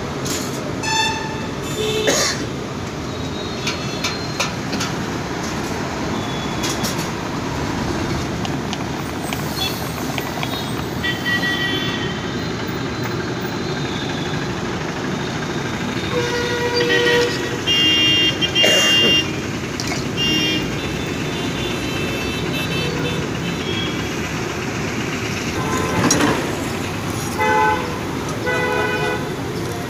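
Steady street traffic noise with vehicle horns honking: a cluster of honks about sixteen to twenty-one seconds in, and a few short honks near the end.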